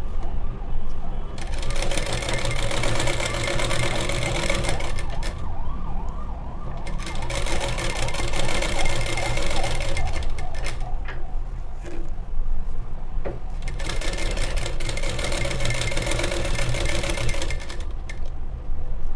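Sewing machine stitching through layers of brocade blouse fabric, running in three spells of a few seconds each and stopping briefly between them.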